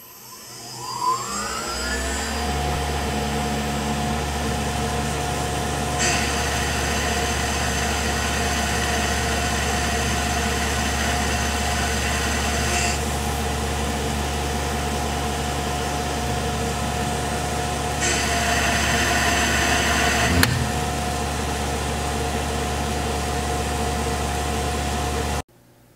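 CNC mill spindle winding up to speed, then running steadily as a quarter-inch four-flute carbide roughing end mill cuts a full-width slot in 6061 aluminium. The brighter cutting whine comes in about six seconds in and again a few seconds before a sharp crack about twenty seconds in. That crack is the end mill snapping, which the machinist blames on the coolant not coming on to clear the chips. The spindle keeps running after the break.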